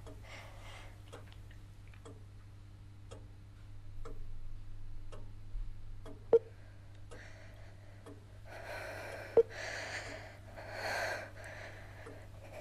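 A clock ticking quietly about once a second over a low hum, with two sharper clicks of a phone camera shutter about six and nine seconds in. Near the end a woman breathes audibly a few times.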